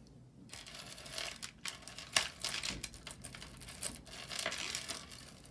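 Crinkling, rustling handling noise with many small sharp clicks, as jewelry and its packaging are moved around by hand. It starts about half a second in, and the loudest click comes about two seconds in.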